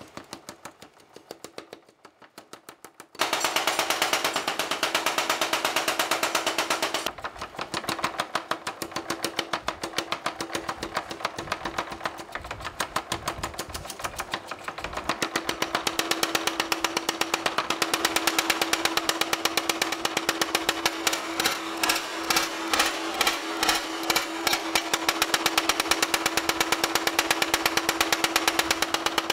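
Mechanical spring power hammer pounding red-hot steel in rapid, evenly repeated blows over a steady motor hum, starting about three seconds in.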